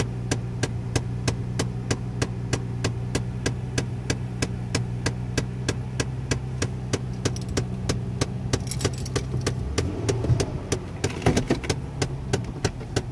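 Loud, rapid, regular clicking from inside the dashboard of a 2011 Toyota Tacoma, about four clicks a second, over the engine idling. About ten seconds in the engine hum changes and fades while the clicking keeps going.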